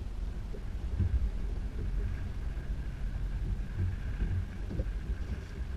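Wind rumbling on the microphone and choppy water slapping against a fishing boat's hull, with a faint steady high tone from about two seconds in.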